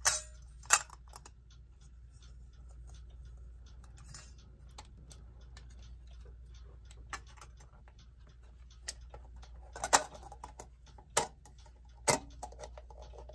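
Clock glass and metal bezel rim being handled and seated back over the dial: scattered, irregular light clicks and taps, with a few sharper knocks near the start and in the last few seconds.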